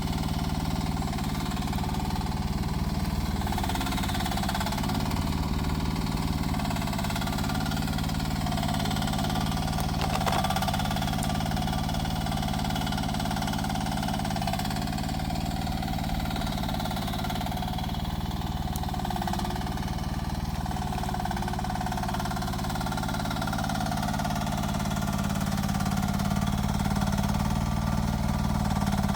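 Rippa R10 mini excavator's engine running steadily during digging, with a single short knock about ten seconds in.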